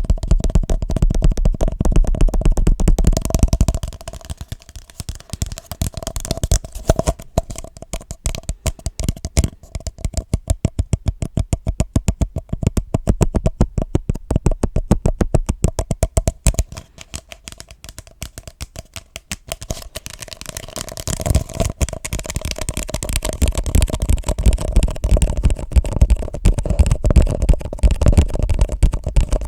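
Fast tapping on objects, many quick taps a second. The tapping is fuller and heavier at first and again about two-thirds of the way in, and lighter and sparser in between.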